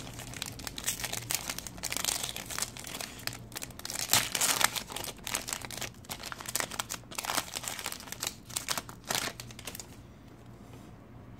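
Foil wrapper of a Panini Diamond Kings baseball card pack being torn open and crinkled by hand. The crackling dies down near the end.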